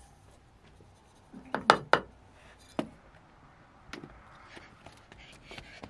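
Hard objects knocking and clattering: a quick cluster of three or four sharp knocks about two seconds in, a single knock a little later, then lighter scattered ticks.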